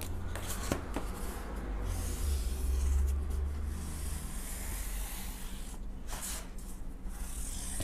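Felt-tip marker dragged across corrugated cardboard, drawing a long line: a continuous scratchy rubbing, with a few clicks of the cardboard sheet being handled in the first second.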